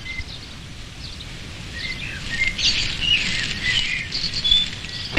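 Birds chirping and singing in short high notes and brief whistles, sparse at first and busier from about two seconds in.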